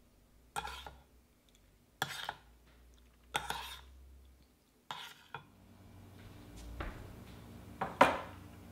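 Metal fork clinking and scraping against a small stainless-steel saucepan of macaroni soup while someone eats from it. The strokes come every second or two, and the loudest is near the end.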